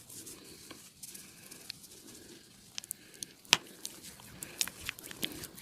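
Scattered sharp clicks and taps of hands working during an upper-body massage, with one much louder snap about three and a half seconds in and quicker clicks near the end.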